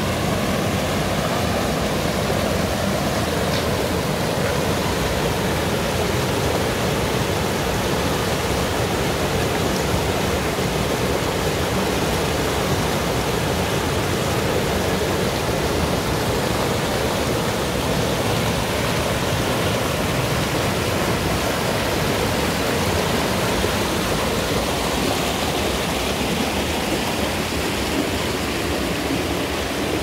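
Mountain river pouring over a small rock cascade into a pool: a steady rush of white water.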